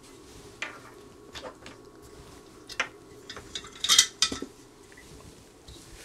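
Scattered sharp metallic clicks and clinks of the finned Bird power attenuator and its coax connectors being handled, the loudest cluster about four seconds in, over a faint steady low hum.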